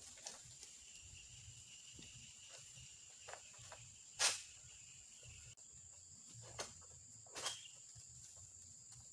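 Steady high-pitched insect buzz under the oil palms, broken by a few short, sharp knocks and cracks, the loudest about four seconds in.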